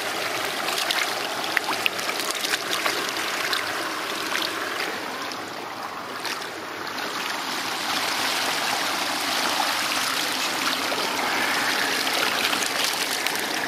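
Shallow stream water running steadily over stones, with a few small sharp splashes in the first few seconds as a hand moves in the water.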